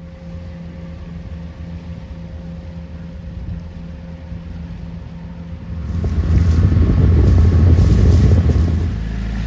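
A boat engine runs steadily with wind and water noise. About six seconds in, the sound jumps louder as wind buffets the microphone with a heavy low rumble.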